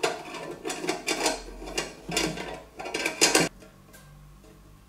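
Metal lantern frame and wire guard being handled, clinking and scraping in a quick run of strokes that stops about three and a half seconds in.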